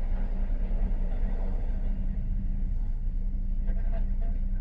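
Steady low rumble of road traffic with a constant low hum underneath.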